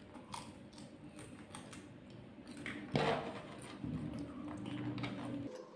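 Close-miked eating sounds of a person eating fried rice by hand: soft chewing and small wet mouth clicks, with one louder smack about three seconds in.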